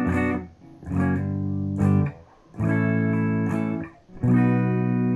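Clean electric guitar through a Boss Katana Artist MK2 amplifier set to contour 3: strummed chords, each rung out for about a second and a half and then cut off, with a new chord roughly every second and a half, four in all.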